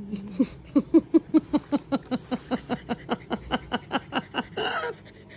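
Keeshond panting fast, about five short breaths a second, loudest about a second in and stopping shortly before the end.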